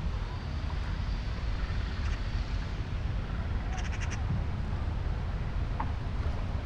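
City park ambience: a steady low rumble, with a short quick run of bird chirps about four seconds in.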